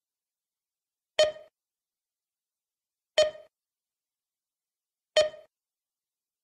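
A short electronic beep that rings out three times, evenly two seconds apart, each one starting sharply and fading within a third of a second, with silence between.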